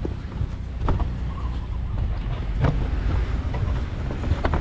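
Low rumbling wind and handling noise on a body-worn camera's microphone, with a few sharp knocks and clicks from handling things at the cage.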